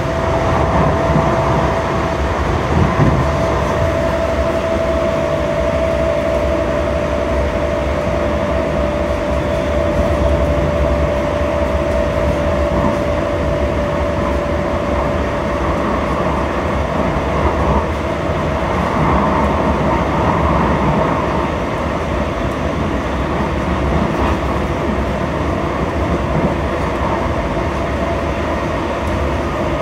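Cabin noise of a Siemens light rail car running between stations: a steady rumble of wheels on track. Over the first half a thin whine slowly drops a little in pitch and fades away.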